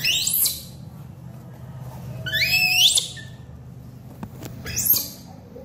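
Baby macaque squealing three times, shrill calls that slide up and down in pitch, the middle one the longest.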